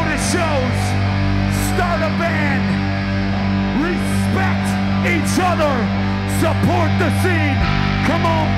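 Hardcore punk band playing live and loud: distorted guitars and bass holding a low, droning chord, with notes sliding up and down above it and cymbal crashes about once a second.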